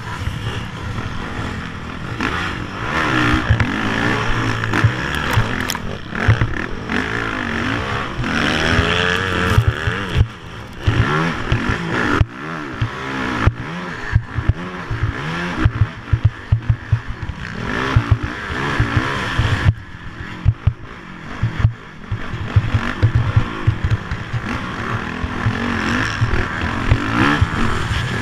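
Engine of an off-road racing vehicle run hard across a rutted sand track, its pitch rising and falling again and again with throttle and gear changes. Under it is a steady rush of wind and rattling over the bumps.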